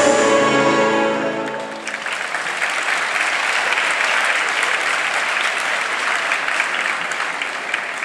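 Programme music ends on held notes that fade out within about two seconds, then a crowd applauds, the clapping thinning near the end.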